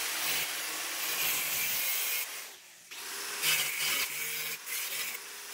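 Electric angle grinder with a cut-off disc cutting through overlapping sheet-steel body panel. The cut breaks off for a moment about two and a half seconds in, then resumes, and the sound eases lower near the end.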